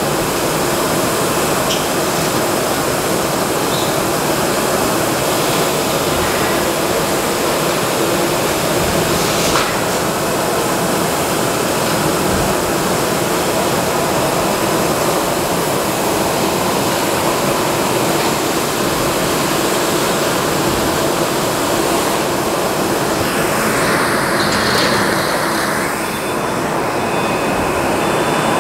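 Steady machinery and air-handling noise of an SMT circuit-board assembly workshop, with a few faint clicks. Near the end the hiss thins and a faint high steady tone comes in.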